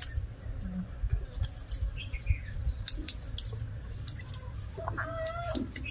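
Scattered light clicks and crinkles of a foil blister strip of tablets being handled and pressed out, over a low steady rumble. A short pitched call sounds near the end.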